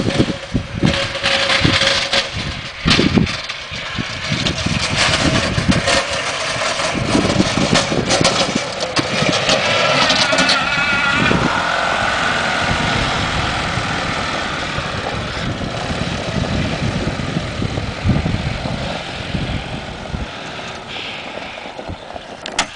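1992 gas E-Z-GO golf cart's engine running as the cart drives past pushing a snow plow blade, growing louder and rising in pitch as it comes close about ten seconds in, then fading.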